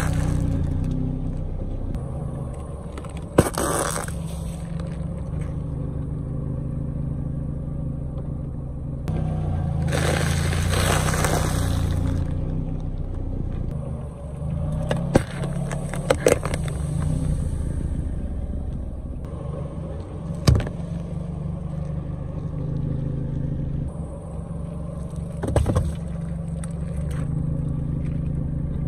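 Car engine running low and steady as a tyre rolls slowly over objects on asphalt. About half a dozen sharp crunches and cracks come at intervals as things are crushed under the wheel: waffle cones, a drink can, drink cartons.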